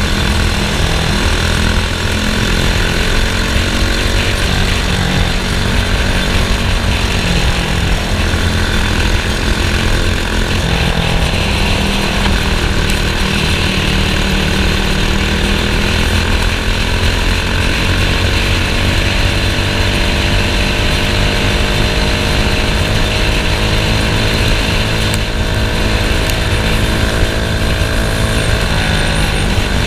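Racing go-kart engine running hard and continuously, its pitch slowly rising and falling with speed over a dense low rumble.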